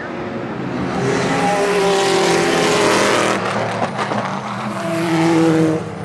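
Racing engines at full speed on a road circuit, one car coming up and growing louder from about a second in with its pitch shifting through gear changes. A second car follows, then the sound cuts off suddenly near the end.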